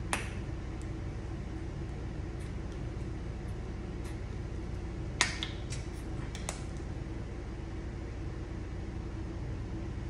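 Steady low room hum with a few sharp small clicks and taps of handling: one at the very start, a quick cluster about five seconds in, and another a second later.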